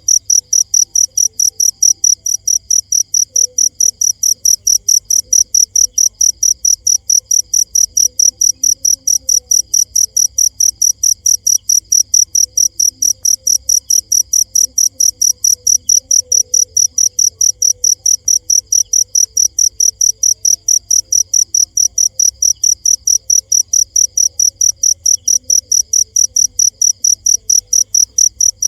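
Cricket chirping: a steady train of short, high-pitched, evenly spaced chirps, roughly four to five a second, with no break.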